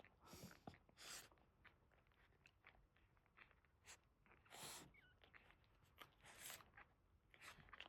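Faint wet mouth sounds from a Boston terrier mother, licking and chewing in short irregular bursts a few times over several seconds.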